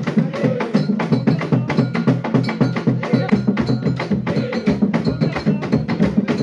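Live traditional Central African dance music from a local ensemble: fast, steady hand percussion with sharp, clicking strikes several times a second over low pitched tones.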